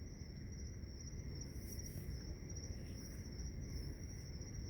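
Night insects, crickets, chirping in a steady high-pitched trill, over a low background rumble.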